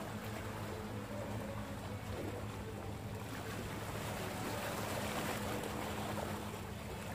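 Seawater sloshing and washing between the concrete tetrapods of a breakwater, swelling a little about four seconds in, over a steady low hum.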